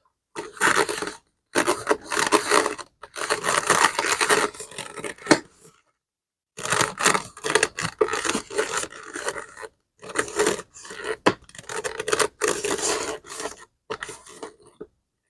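A brush scrubbing a leather bag in quick, rough strokes, in several spells broken by short pauses.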